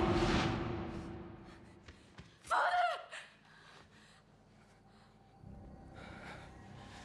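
A man's short, strained gasp about two and a half seconds in, after a louder sound fades away during the first second.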